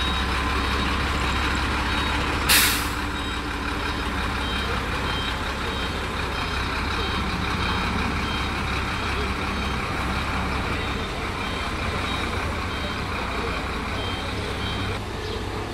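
Heavy truck's diesel engine idling, with a reversing alarm beeping over it at a steady rate. A short, sharp hiss of air brakes about two and a half seconds in is the loudest sound.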